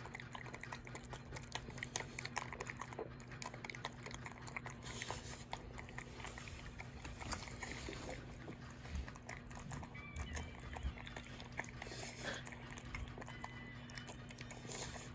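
A dog chewing and eating food, a steady run of small wet smacking clicks.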